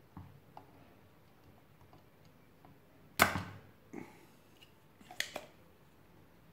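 Spring-loaded desoldering pump (solder sucker) firing with one sharp snap about three seconds in, as its plunger is released to suck molten solder off a capacitor lead. A softer knock follows, then a quick double click a little after five seconds.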